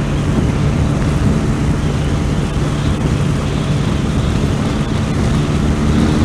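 Motorcycle engine running at a steady cruise, under loud wind noise buffeting the microphone.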